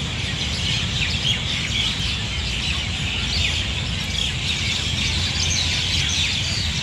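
A large flock of birds chirping and calling together, many short overlapping calls at once, over a steady low rumble.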